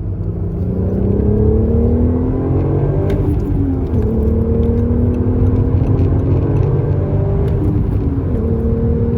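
Audi A3 3.2 VR6 engine and exhaust accelerating hard. The pitch climbs, drops at an upshift about four seconds in, climbs again, and drops at a second upshift near the end.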